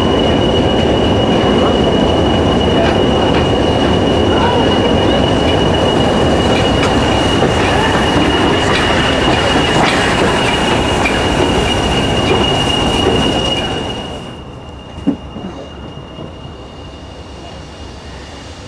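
Steam locomotive 53809, a Somerset & Dorset 7F 2-8-0, running slowly along the platform and passing close by, loud and steady. About 14 seconds in this gives way to the quieter steady rumble of the train rolling slowly, with one sharp knock.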